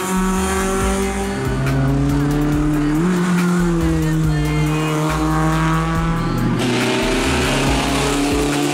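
Hill-climb race cars driving past at speed, their engines held at high revs.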